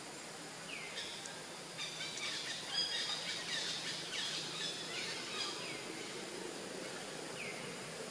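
Birds chirping over a steady, high insect drone, with a busy flurry of chirps from about two to five seconds in and a few short downward-sliding calls.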